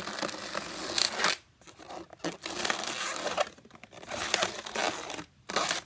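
Latex balloons rubbing against each other and against the hands as they are squeezed and twisted into bubbles, in about four stretches with short pauses between them.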